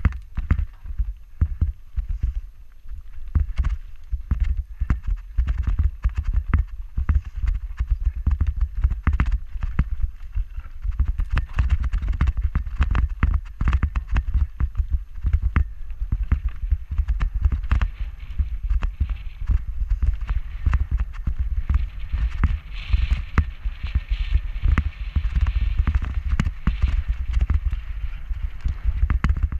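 Mountain bike riding fast down a rocky gravel trail: the tyres crunch over stones and the bike clatters and rattles in many sharp clicks, over a steady low rumble of wind on the handlebar-mounted camera's microphone.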